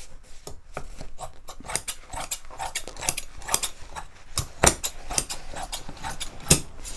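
Scissors snipping through heavy upholstery fabric in a quick run of cuts, with the sheet rustling as it is handled. Two louder snips stand out, one about two-thirds of the way in and one near the end.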